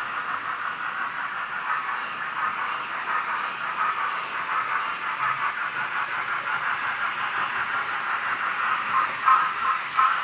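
OO gauge model goods train of coal wagons running on the layout: a steady rattling with hiss, a little louder near the end.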